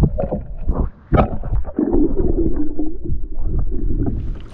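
Muffled underwater sound from a camera held below the lake surface: water sloshing and gurgling with knocks against the housing. A low drone comes in about two seconds in and lasts over a second.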